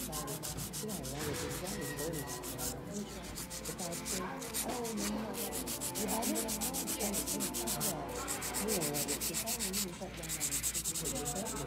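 Hand nail file rasping across a long acrylic stiletto nail in quick, even back-and-forth strokes, broken by a few short pauses as the nail is shaped.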